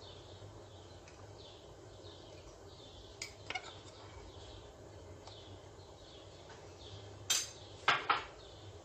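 A metal spoon clinking against a stainless steel pot as spoonfuls of starch are tipped into the liquid: a couple of light clinks about a third of the way in, then a louder cluster of three near the end.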